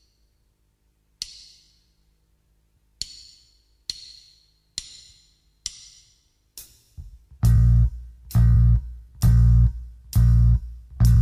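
Sharp count-in ticks about once a second, then about seven seconds in a slow blues band with bass and guitar comes in, striking loud chords on each beat.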